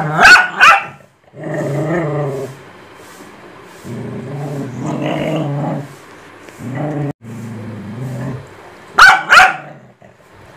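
Dogs squabbling: long, low growls come again and again, broken by two sharp barks right at the start and two more about nine seconds in, which are the loudest sounds.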